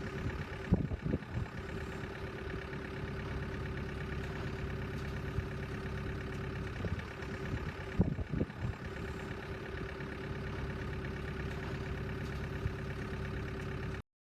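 A machine's engine running steadily at an even, idling-like pace, with a few short knocks about a second in and again around eight seconds in.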